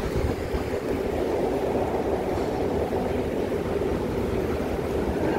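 Steady, even mechanical noise of a metro station concourse, a constant hum of machinery and distant trains with no clear events.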